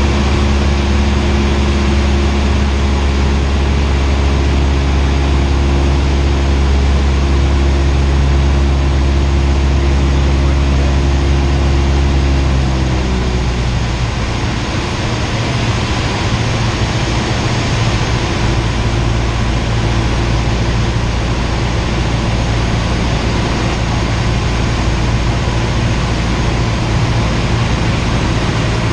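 A Cessna 172R's four-cylinder Lycoming engine and propeller drone steadily, heard inside the cabin. About halfway through, the pitch drops to a lower drone as engine speed falls when power is reduced.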